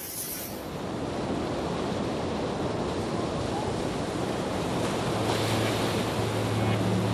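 Ground fountain firework (flower-pot type) spraying sparks with a steady, even hissing rush. A low hum joins it about five seconds in.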